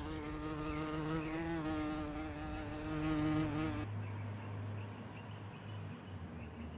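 A flying insect buzzing: a steady humming tone that wavers slightly in pitch. About four seconds in it gives way to a lower, fainter hum.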